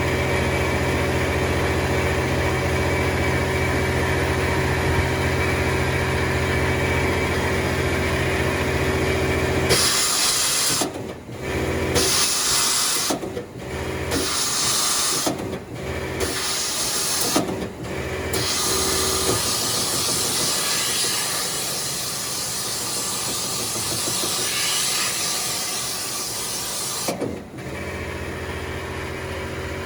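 Femco Durga 25E CNC turning center lathe running under power with a steady machine hum. About ten seconds in, a loud hiss cuts in and out four times, then runs on steadily and slowly fades, and the hum returns near the end.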